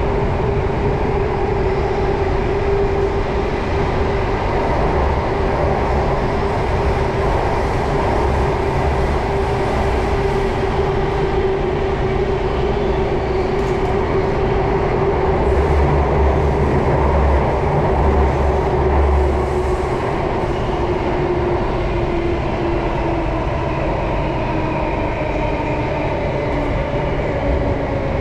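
Underground MRT train running between stations, heard from inside the carriage: a steady rumble of wheels on rail with a whine that falls in pitch over the last few seconds. The low rumble swells for a few seconds in the middle.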